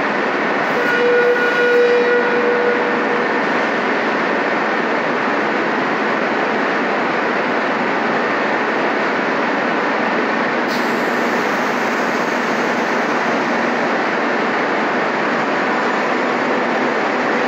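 Madrid Metro Serie 5000 train standing at an underground platform with its doors shut, its equipment giving a steady, loud hiss and hum. A brief pitched tone sounds about a second in and lasts a second or two.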